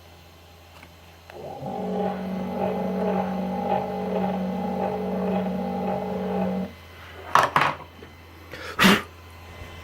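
Small CNC router's motor running with a steady whine for about five seconds, then stopping abruptly. Two sharp knocks follow, then a third louder one.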